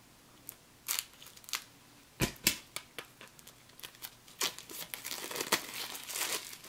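Plastic shrink-wrap being cut and peeled off a deck of game cards: scattered sharp snaps and crackles, with a louder pair a little over two seconds in, then a denser crinkling as the wrap is torn away in the second half.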